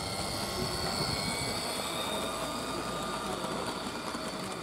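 A 16mm-scale model Kerr Stuart diesel locomotive hauling a train of small open wagons running past on garden railway track, with a steady high whine. Light, regular clicking of the wheels over the track joins in toward the end.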